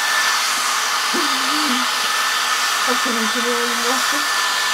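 Small handheld hair dryer running steadily with a sock pulled over its nozzle: a constant rush of air with a steady high whine from its motor.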